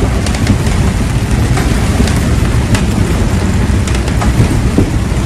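Storm noise aboard a motor cruiser running through rough water: a steady loud rush of wind and rain on the flybridge's clear vinyl enclosure over a deep rumble, with sharp ticks of raindrops striking throughout.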